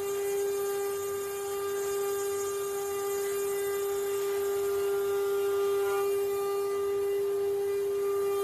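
Spindle motor of a CNC wood-carving router running with a steady whine.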